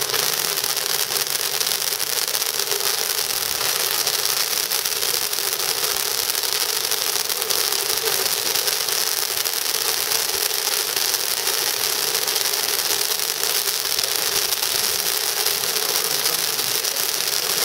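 Firework fountain burning with a steady hiss as it sprays its jet of sparks.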